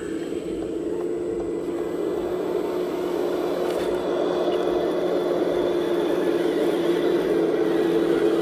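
Tamiya 1/14-scale RC dump truck's electric drive motor and gearbox whining steadily as the loaded truck drives, growing gradually louder.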